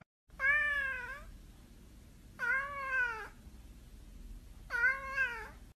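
A domestic cat meowing three times, each meow about a second long and rising then falling in pitch.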